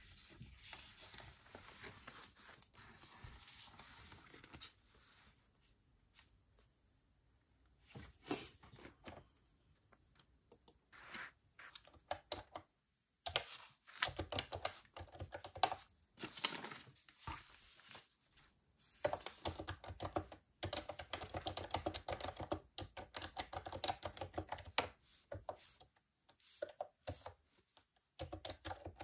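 Typing on a computer keyboard: short runs of key clicks with pauses, becoming long, dense runs from about the middle on. A soft rustling noise comes first, lasting a few seconds.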